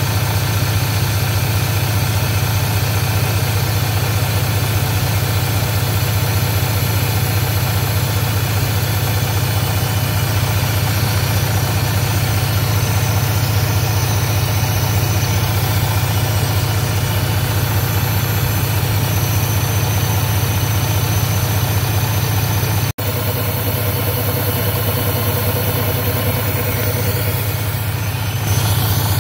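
Navistar A26 inline-six diesel engine idling steadily, with a momentary break in the sound about three quarters of the way through.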